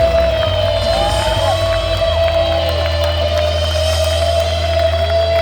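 Live rock band music: a long held note over a steady low bass drone, with a few short shouts from the crowd.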